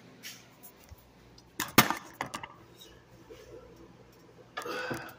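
Handling noise as a wooden-framed wall clock is picked up and moved: a couple of sharp knocks about a second and a half in, then a few lighter clicks, and a short scuffing sound near the end.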